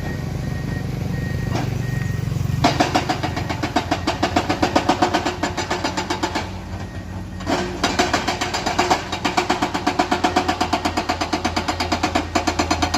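Komatsu excavator's diesel engine running steadily. About two and a half seconds in, a fast, even rhythmic clatter starts over it, stops for about a second around seven seconds in, then carries on.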